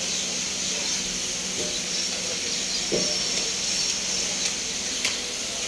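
Steady background hiss with a low, even hum, and a few faint clicks near the end.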